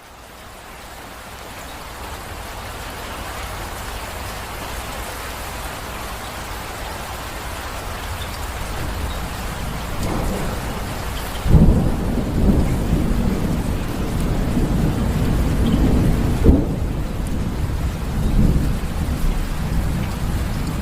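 Steady heavy rain that fades up over the first few seconds. Thunder starts rumbling a little past halfway, with the loudest claps about halfway in and again about three-quarters of the way through.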